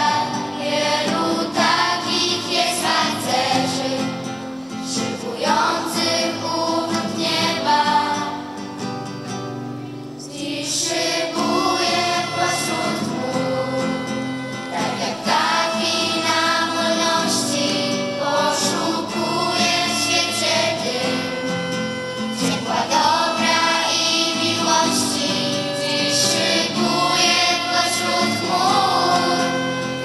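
A choir of young girls singing a song in unison, with a violin playing along. The singing eases off briefly about a third of the way through, then comes back in full.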